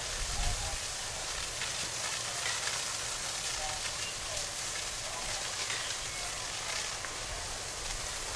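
A fully burning transformer station crackling and hissing steadily as a fire hose's water jet plays onto the flames.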